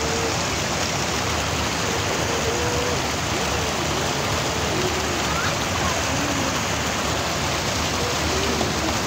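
Water rushing steadily over a low concrete weir, with faint voices calling in the background.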